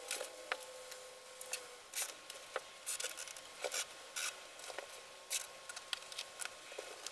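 Masking tape being pulled off the roll and rubbed down onto carpet: a dozen or so short, faint rasps and clicks at irregular spacing, with soft rubbing between them.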